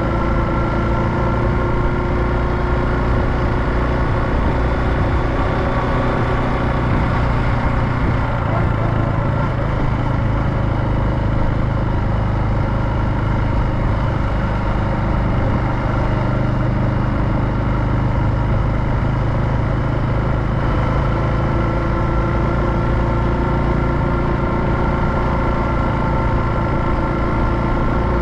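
Honda Super Cub JA59's small single-cylinder four-stroke engine running at a steady speed while riding.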